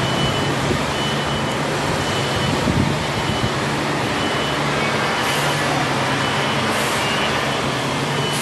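Steady workshop noise of CNC machining centers running: a continuous hum and hiss with a faint high-pitched tone sounding on and off. A few brief bursts of sharper hiss come in the second half.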